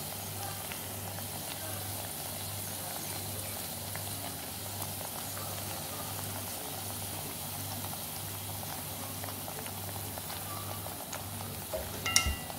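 Cow kidney simmering in a little gravy in a pot on the stove: a steady bubbling and sizzling hiss as the gravy cooks down. A few sharp knocks come near the end.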